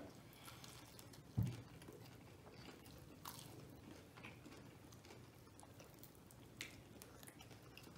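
Faint chewing and small mouth clicks of people eating fried chicken, with one soft low thump about a second and a half in.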